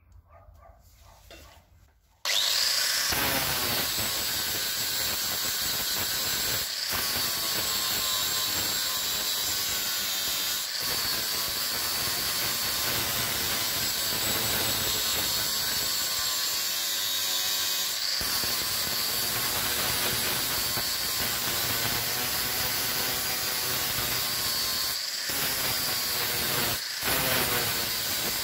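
Angle grinder with a flap disc grinding down a weld on a steel blade. It starts about two seconds in, then runs steadily under load with a high, wavering whine, broken off very briefly a few times.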